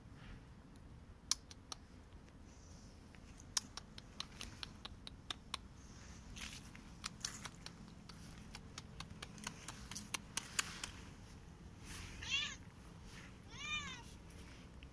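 Korat cat meowing twice near the end, about a second and a half apart, each call rising and falling in pitch. Before that, dry fallen leaves crackle in quick irregular clicks.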